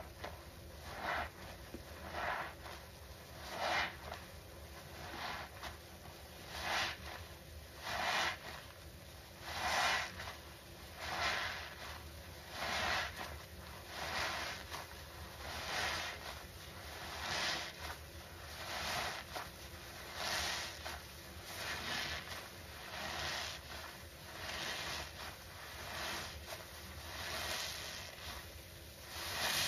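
Foam sponges loaded with thick cleaner suds being squeezed by hand: a wet, squelching squish about every second and a half, in a steady rhythm.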